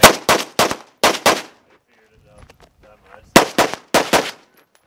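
Gunshots from a firearm fired in two quick strings: about five shots in the first second and a half, then after a pause of about two seconds four more in rapid succession.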